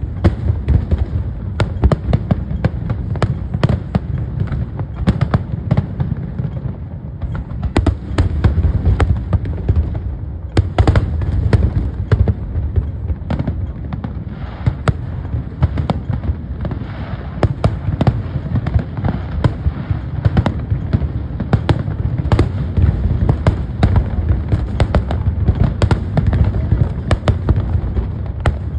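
Fireworks display: a dense run of shell bursts, many sharp bangs following one another over a constant low rumble.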